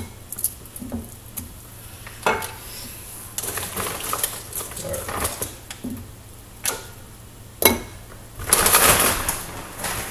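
Scattered knocks and clinks of a small stainless-steel cooking pot and its lid, the sharpest clank about three-quarters through as the lid goes onto the pot. A longer rustling burst follows near the end.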